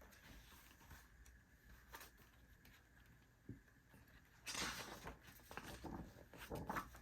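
Faint handling noises of paper and packaging, with small clicks, then a louder rustle about four and a half seconds in as the items are moved.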